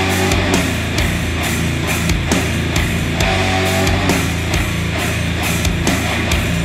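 Heavy, aggressive rock music with distorted guitar and drums, played back through hi-fi bookshelf speakers, with a phrase repeating about every three seconds.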